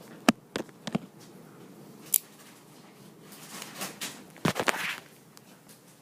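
Irregular sharp clicks and knocks: a few single ones in the first two seconds, then a quick cluster of louder knocks about four and a half seconds in.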